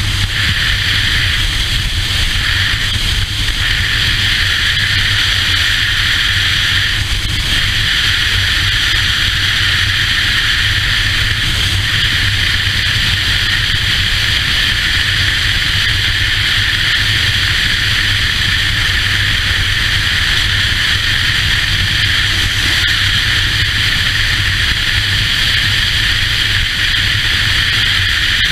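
Motorcycle cruising at a steady speed: a low engine drone under a heavy, even rush of wind on the camera's microphone.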